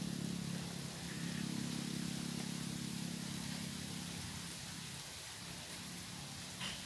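Low hum of a distant motor vehicle's engine, fading away about four to five seconds in, over a steady outdoor hiss.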